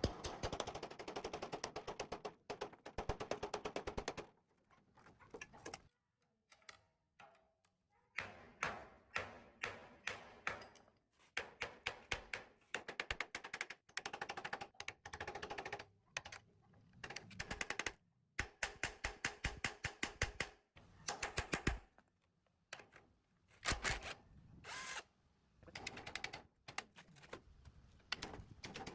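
Rapid repeated mechanical impacts, like a tool hammering or rattling on metal, coming in a dozen or so bursts of one to three seconds that stop and start.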